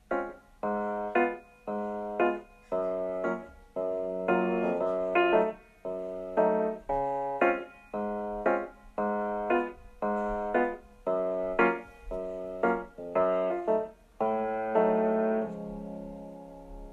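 Background music: piano notes and chords struck about twice a second, each dying away, ending on a held chord that fades out.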